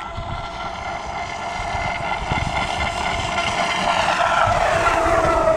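BlackJack 29-inch 4S RC boat's brushless motor and propeller running at full speed, a high whine growing louder as the boat approaches, its pitch dropping as it passes close about four seconds in.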